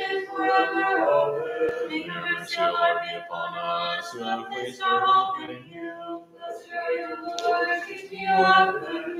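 Voices singing unaccompanied Byzantine liturgical chant, in held notes with short breaks between phrases.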